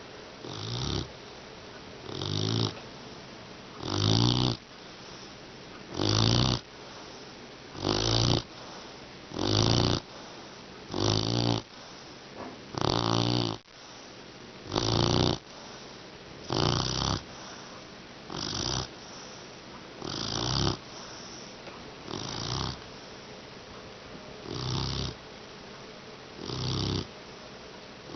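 Mastiff puppy snoring in its sleep, a loud snore about every two seconds, evenly repeated.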